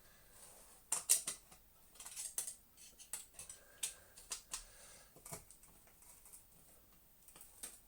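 Irregular clicks, taps and short scrapes of a screwdriver working at a Dyson DC24's Panasonic motor to undo the fan nut; the broken motor can no longer be locked to hold the fan. The loudest clicks come about a second in.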